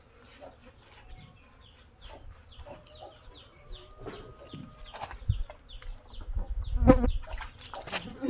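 Small birds chirping in short, repeated falling notes and chickens clucking. Several knocks and low thumps come in the last three seconds.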